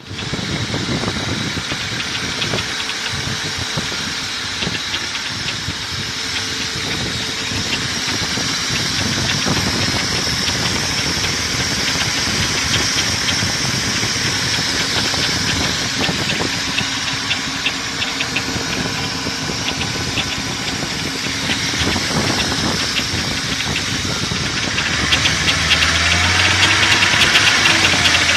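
BMW E39 540i's 4.4-litre V8 running with a rapid ticking or knocking throughout, the owner's unexplained "weird sound". Near the end the engine is revved, its pitch rising and falling back.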